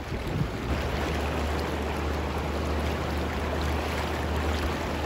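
Fast river water rushing over a shallow rocky riffle: a steady, even wash, with a low rumble under it from about a second in.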